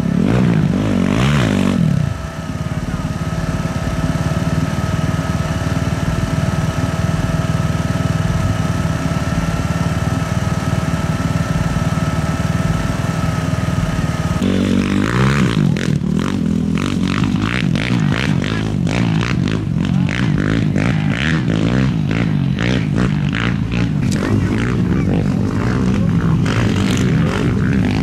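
Off-road race motorcycle engines. One revs as it goes by at the start, then an engine idles steadily with a thin whine. About halfway through, this gives way abruptly to a rougher engine sound full of rattles and knocks.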